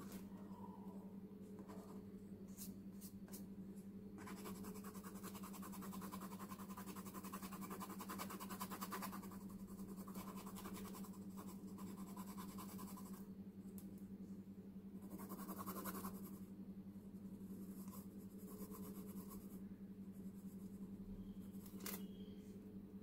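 Pencil shading on drawing paper: soft, rapid scratching strokes from about four seconds in to about thirteen, and again briefly around sixteen seconds, over a steady low hum.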